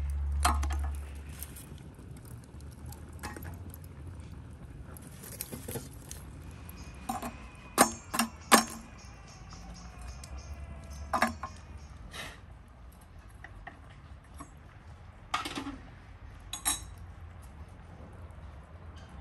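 Metal tongs and the parts of a samovar clinking and knocking as glowing coals are loaded into its top to heat the water. The clinks come singly and scattered, loudest in a quick run of three about eight seconds in.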